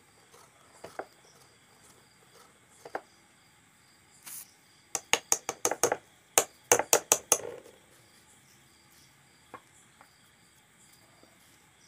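Wire whisk clicking against a stainless steel mixing bowl of cake batter. A few single clicks come first, then a quick run of about fourteen sharp metallic clicks over two and a half seconds, about five seconds in.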